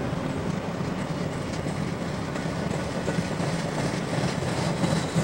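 Freight train cars rolling past: steady noise of steel wheels running on the rails, with some clacking over the rail joints.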